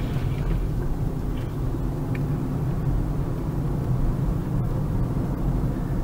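A car's engine and tyre noise heard from inside the cabin while driving, a steady low rumble.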